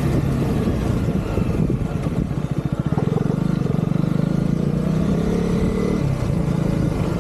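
Husqvarna Vitpilen's single-cylinder engine running while the motorcycle is ridden. The engine note drops and pulses a couple of seconds in, then picks up again and eases off near the end as the throttle changes.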